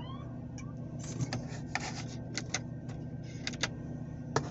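Inside a Mercury Mariner's cabin: a steady low engine hum with scattered, irregular light clicks and taps.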